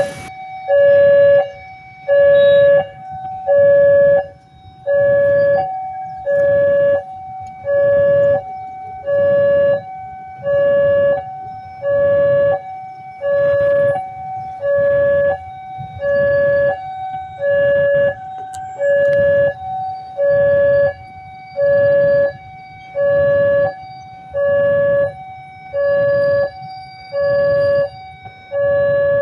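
Electronic level-crossing warning alarm sounding. It is a loud pulsed tone that repeats evenly about once every 1.3 seconds, warning that a train is approaching.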